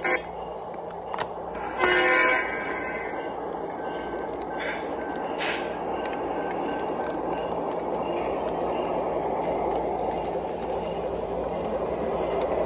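O gauge model diesel locomotive's sound-system horn blowing a short blast about two seconds in, then the model train running on the track, its wheel and motor noise steadily growing louder, over a low electrical hum.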